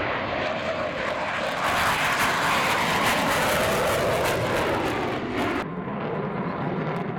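Sukhoi Su-27 fighter jet flying its display, the loud noise of its twin turbofan engines swelling about two seconds in. The noise falls off near the end.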